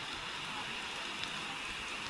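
Steady rush of flowing river water from the Maha Oya.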